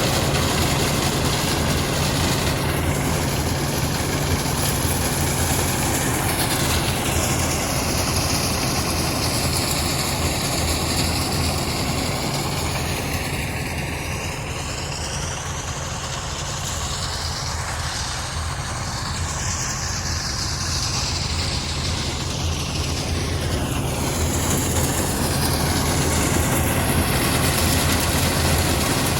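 Engine-driven soybean threshing machine running steadily: a continuous engine hum under a broad mechanical rush. It dips a little around the middle and builds again near the end.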